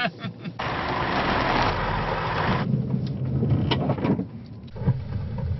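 Range Rover Evoque heard from inside the cabin while being driven: about half a second in, a loud rushing noise lasts about two seconds, then gives way to a low engine and road rumble with brief voices.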